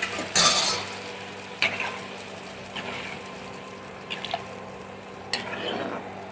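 A ladle stirring thin brinjal gravy in a coated kadai, giving a handful of separate scrapes and light clinks against the pan. The loudest comes about half a second in.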